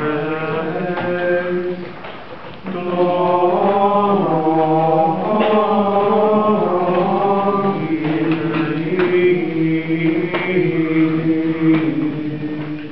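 Gregorian chant sung in a single melodic line: the Offertory chant of a sung Latin Mass. Long held and gliding notes, with a short breath pause about two seconds in.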